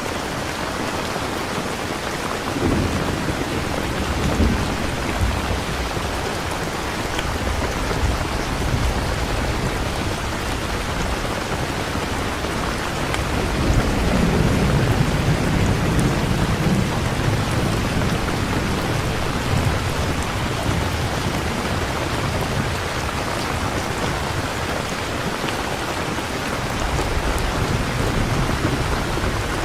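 Steady heavy rain with thunder rumbling through it: a low rumble about three seconds in, a longer, louder roll in the middle, and a fainter one near the end.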